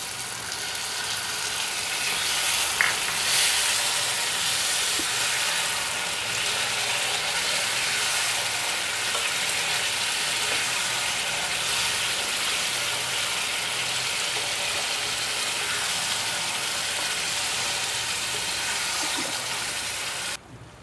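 Chicken curry gravy sizzling steadily in a nonstick frying pan just after a little water has been poured in, with a spatula stirring through it. The hiss cuts off suddenly near the end.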